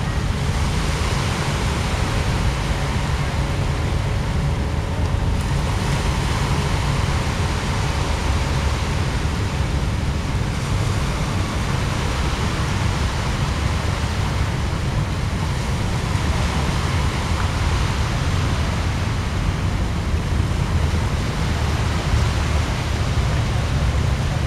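Wind buffeting a compact camera's built-in microphone: a steady rumble over an even outdoor hiss. A faint steady hum runs underneath for the first several seconds.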